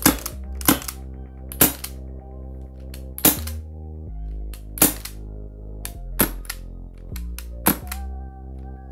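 Airsoft MK23 pistol fired through a silencer: about seven sharp, short pops, a second or more apart, over background music.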